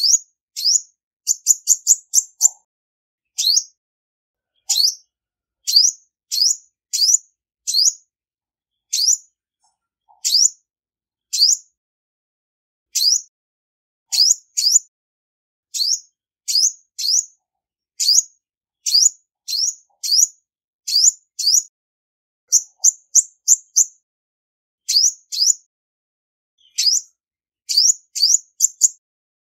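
Female olive-backed sunbird calling: short, high-pitched chips, given singly or in quick runs of four or five.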